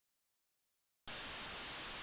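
Dead silence for about the first second, then a faint, steady hiss of background noise starts abruptly and runs on evenly.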